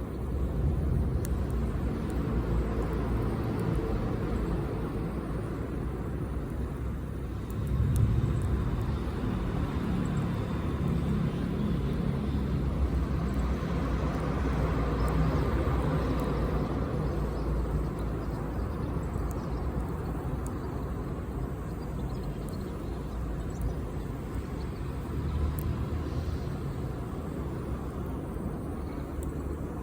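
Campfire burning: a steady low rumble and hiss with occasional small sharp crackles from the wood.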